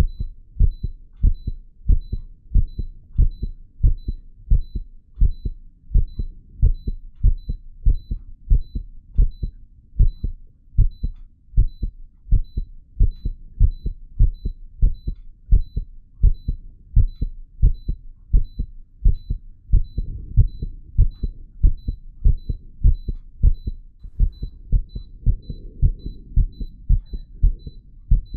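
A man's heartbeat, amplified, beating fast at about two beats a second, each beat a low double thump. An ECG monitor gives a faint high beep in time with each beat.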